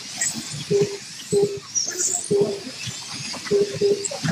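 1/32 scale slot cars racing, their small electric motors whining faintly and rising and falling. Short single-pitch electronic beeps of the lap-timing system come at uneven intervals, about half a dozen of them, as cars cross the lap counter.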